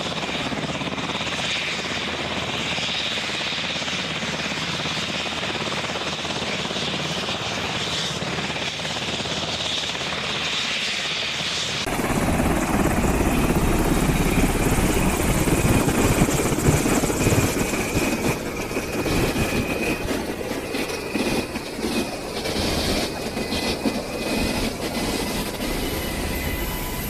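UH-60 Black Hawk helicopter running on the ground with its rotor turning: a steady turbine whine over rotor noise. About twelve seconds in the sound jumps to close beside the aircraft, louder and heavier in low rumble.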